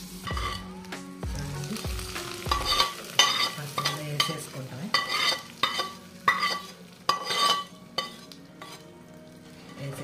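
A perforated metal spoon scraping a hot tempering of oil, garlic, mustard seeds and curry leaves out of a nonstick frying pan, in a run of short scrapes about a second apart, while the hot oil sizzles.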